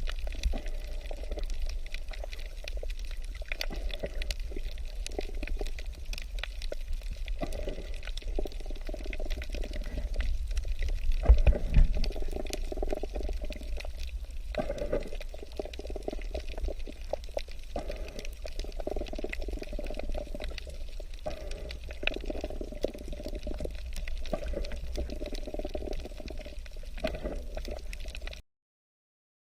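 Watery gurgling and sloshing over a steady low rumble, with scattered small clicks; it cuts off abruptly near the end.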